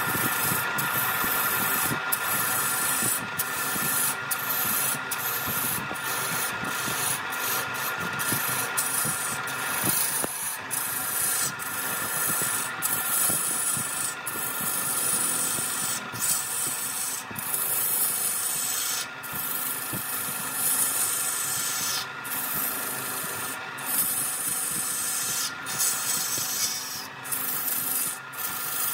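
Wood lathe running with a tool or abrasive held against the spinning wood: a steady rasping hiss broken by many short breaks where the contact lifts off.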